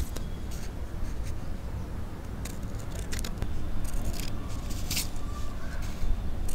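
Steel Munix scissors snipping through sheets of red craft paper, cutting a fringe of strips. The snips come irregularly, several close together in the middle.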